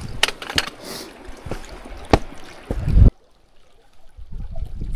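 Water splashing and lapping at a lake's edge, with irregular sharp clicks and wind buffeting the microphone; the sound cuts off suddenly about three seconds in, leaving a quieter wind rumble.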